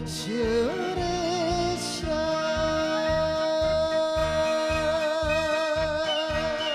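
Enka song with band accompaniment: a singer sings the last words of the song, then holds one long final note with vibrato over a steady beat.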